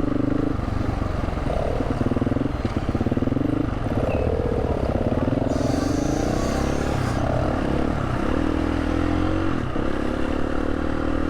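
KTM 350 single-cylinder four-stroke dirt bike engine running at low speed, the revs rising and falling with the throttle.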